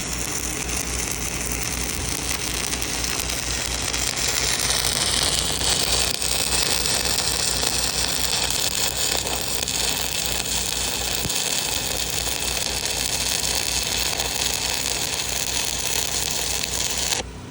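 Stick (shielded metal arc) welding arc crackling and sizzling steadily over a low engine hum. The crackle cuts off suddenly near the end as the arc is broken, leaving the engine hum.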